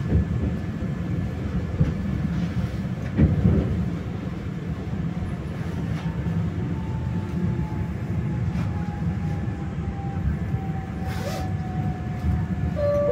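Inside an electric passenger train: steady running rumble with a few wheel knocks over rail joints early on. In the second half a thin whine slowly falls in pitch as the train slows into a station.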